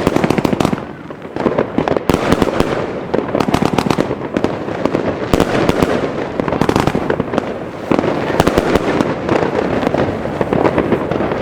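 75-shot 30 mm compound firework cake firing, a dense, rapid run of sharp bangs and cracks. There is a short lull about a second in, then it fires densely again.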